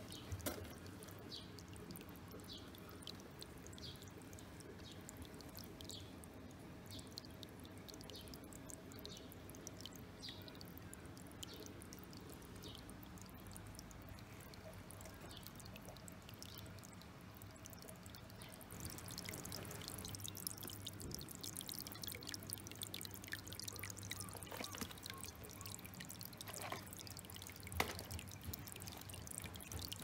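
A thin stream of water falling from a small spout over rocks into a miniature pond: a steady trickling splash with light drips. It grows louder and brighter about two-thirds of the way through.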